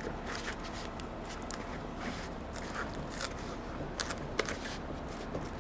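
Hands pressing an adhesive foam seal down onto an air-cart meter housing: a few scattered light clicks and rustles against faint background noise.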